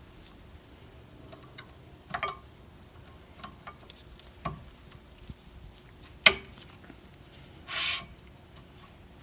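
Metal clicks and clinks of rear brake pads being fitted into a caliper bracket. A few scattered clicks, one sharp loud click about two-thirds of the way through, and a short scrape near the end.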